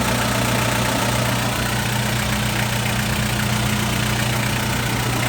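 Isuzu Fargo van's 4FG1 engine idling steadily with an even low hum. A second steady higher hum joins about two seconds in and fades out near the end.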